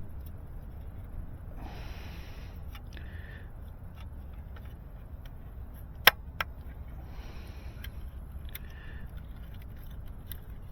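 Handling noise as a fusion-spliced fiber is wrapped up and stowed: two short rustles and two sharp clicks about six seconds in, a third of a second apart, over a steady low rumble.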